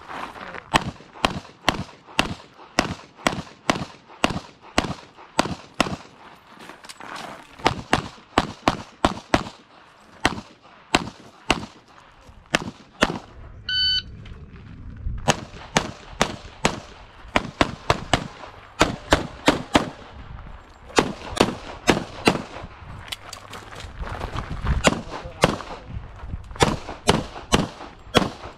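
CZ Tactical Sport Orange pistol firing fast strings of shots, often in quick pairs, with short pauses between strings. About 14 s in, a shot timer's start beep sounds and the rapid firing resumes.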